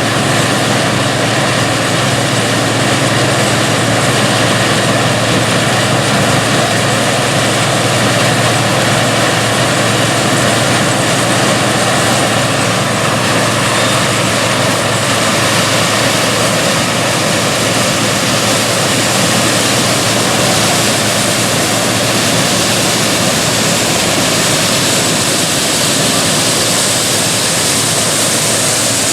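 Classic combine harvester running while harvesting corn: a loud, steady wash of engine and machinery noise with a low hum underneath.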